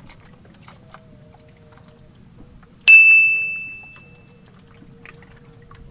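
A small bite-alarm bell on a fishing rod tip dings once, sharp and clear, then rings away over about a second and a half: a fish tugging at the bait.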